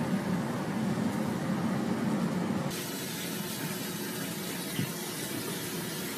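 A steady low hum, then from about three seconds in the steady hiss of water running from a tap into a washroom sink.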